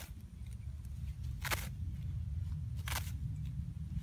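A woven plastic sack rustling and scraping under a hand in three short strokes about a second and a half apart, over a steady low rumble.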